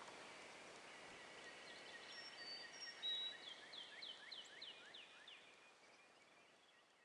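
Faint nature ambience of soft hiss with a bird calling: a few short high whistled notes, then a run of quick falling chirps about three a second. It all fades out toward the end.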